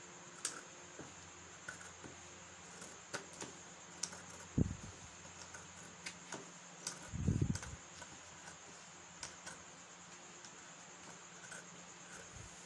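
Fabric scissors cutting through wax-print cotton fabric: scattered snips and clicks of the blades. There are two dull bumps, about four and a half and seven seconds in.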